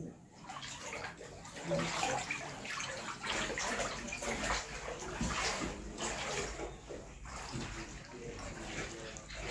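Floodwater sloshing and splashing in irregular bursts.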